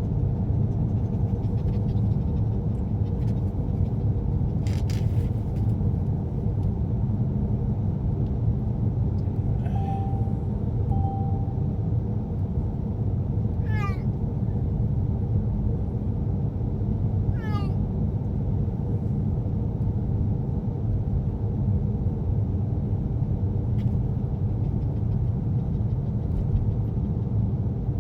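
A cat meowing twice, short calls just past halfway, with a fainter one a little before, over the steady rumble of a car's road and engine noise inside the moving cabin.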